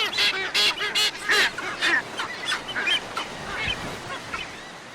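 A flock of sooty terns calling at once in a breeding colony: many short, overlapping calls, densest in the first two seconds and thinning out towards the end.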